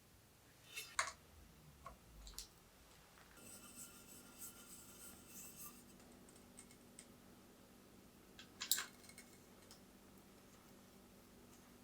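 Faint workshop handling sounds: a few sharp clicks and taps, and a couple of seconds of scratchy rustling about three seconds in. A low steady hum starts with the rustling.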